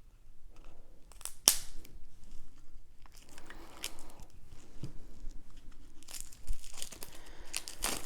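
Plastic shrink-wrap being torn and crinkled off a deck of game cards, in sharp tearing rips with the loudest near the start and a longer run of crinkling near the end.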